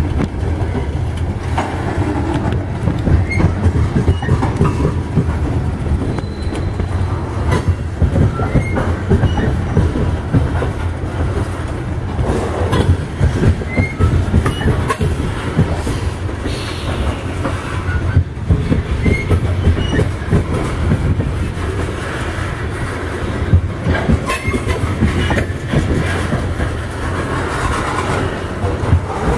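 Coal train's aluminium gondola cars rolling past at close range: a steady low rumble of wheels on rail, with wheels clacking over rail joints and occasional brief wheel squeals.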